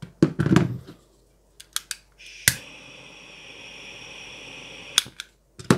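Handheld butane torch clicked alight about two and a half seconds in, its flame hissing steadily for a couple of seconds before it clicks off. Before that, metal hand tools clatter loudly as they are set down on the bench.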